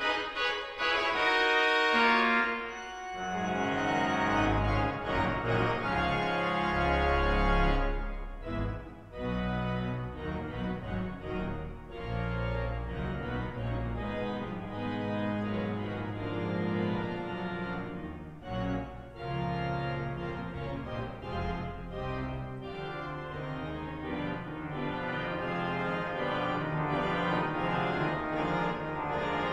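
Leeds Minster pipe organ playing sustained chords, with deep pedal bass notes coming in about three seconds in. The music breaks briefly twice between phrases.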